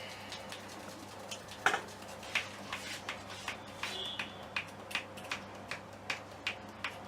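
A run of sharp, evenly spaced clicks, about three a second, starting about two seconds in after a single louder click.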